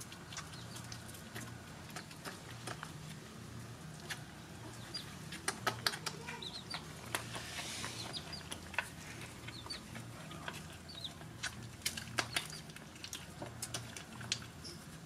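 Several puppies lapping and eating milk together: many quick wet clicks and smacks, with a few short high chirps around the middle, over a low steady hum.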